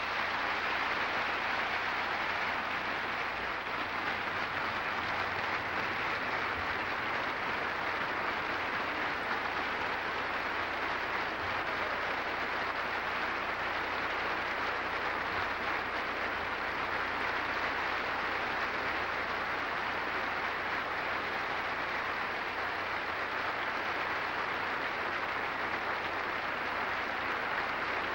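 Large theatre audience applauding: dense, steady clapping that carries on without a break.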